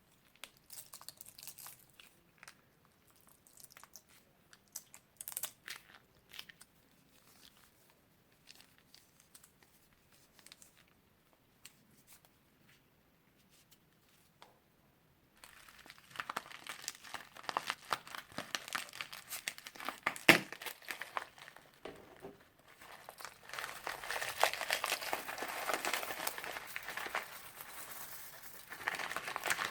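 Crunchy slime being squeezed and worked by hand. For about the first half there are scattered small crackles and pops, then it turns into a dense, continuous crunching and crackling that gets louder toward the end.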